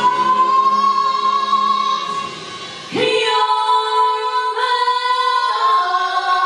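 A woman belting one long, high sustained note through a microphone. The note drops away briefly about two and a half seconds in, then is taken up again and held, while a lower vocal line slides up beneath it near the end.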